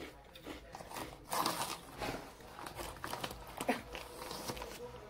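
Close-up crunching and chewing of Calbee Shrimp Chips, crisp puffed shrimp crackers, in irregular bites, with the chip bag crinkling now and then.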